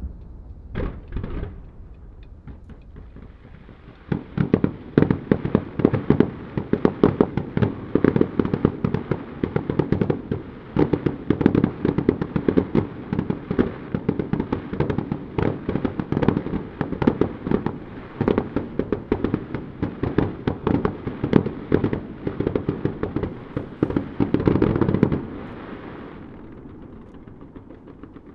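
Digital starmine fireworks, fired in rapid sequence by computer: a couple of bangs just after the start, then from about four seconds in a dense run of rapid pops and cracks, many a second, that stops abruptly near the end.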